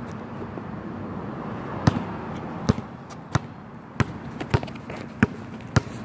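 Footsteps on a concrete sidewalk: seven sharp thumps about two-thirds of a second apart, starting about two seconds in, over a steady low background hum.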